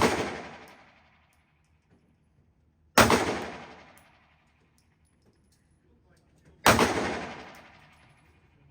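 Three single shots from a Taurus GX4 9mm pistol fired at a slow, steady pace: one at the very start, then one about 3 seconds in and one near 7 seconds. Each crack trails off in a long fading echo.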